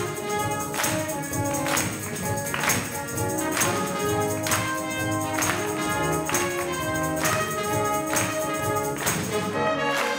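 High school wind band playing a piece in a steady tempo, with held notes and a percussion stroke on the beat about once a second.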